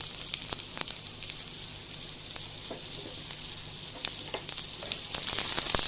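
Chopped onions and tomatoes frying in hot oil in a wok, a steady sizzle with scattered crackles. The sizzle grows louder about five seconds in.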